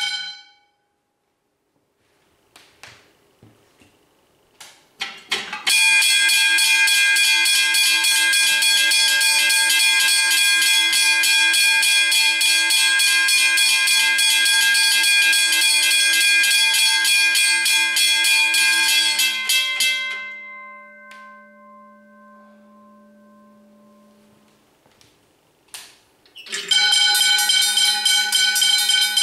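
Several railway level crossing bells ringing together, their rapid strokes blending into one dense metallic ringing. They stop abruptly right at the start, start again about six seconds in after a few clicks and knocks, and cut off about twenty seconds in, leaving a few tones that fade over some seconds. After more clicks near the end, a fresh set starts ringing.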